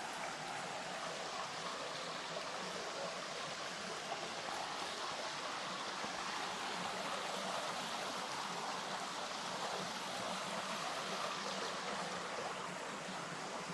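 Flowing river water rushing steadily, an even unbroken wash of sound.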